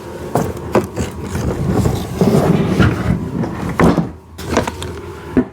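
Hands working a plastic motor housing and wire on a kids' ride-on car: scattered plastic clicks and knocks, with rustling and scraping about midway.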